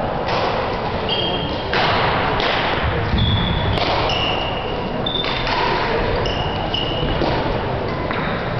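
Badminton play: thuds and sharp hits from rackets and shuttlecock, mixed with short high squeaks, several times over.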